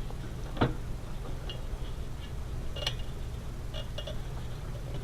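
Scattered clicks and taps of screws, tools and metal parts being worked inside a desktop computer case: a knock about half a second in, a sharper click near the middle, and a few light ticks soon after, over a steady low hum.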